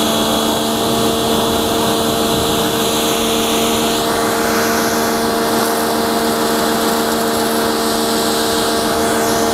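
Motoyama 650 W electric high-pressure washer running under load: a steady motor hum with the hiss of the water jet spraying onto the scooter and the wet ground. The spray hiss shifts about four seconds in as the jet is moved across the bodywork.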